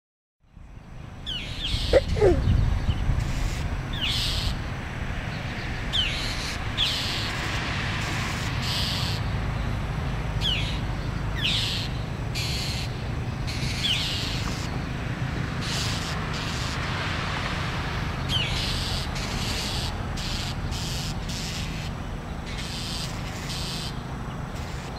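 Northern mockingbirds giving repeated harsh scolding calls, a short burst about every second, some with a quick falling note, as they mob a hawk near their young. A steady low rumble runs underneath.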